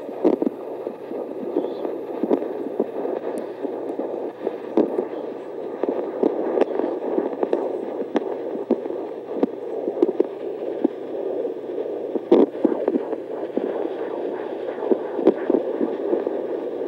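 Portable Doppler ultrasound playing an unborn puppy's heartbeat through its speaker: a fast, rhythmic whooshing pulse ('placa, placa, placa') over steady hiss. The rate is about 200 beats a minute, a healthy heart rate for a puppy.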